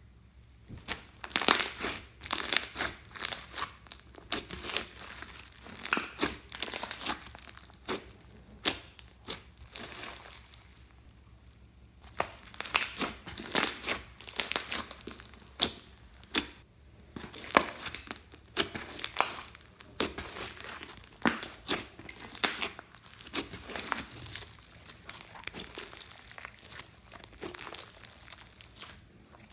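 Hands squeezing, stretching and folding a glossy, glitter- and bead-filled slime: a run of irregular sticky crackles and pops, with a couple of brief lulls.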